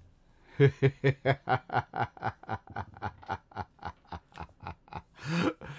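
A man laughing heartily: a long run of rapid 'ha-ha-ha' pulses, about five a second, fading gradually, then a sharp breath drawn in near the end.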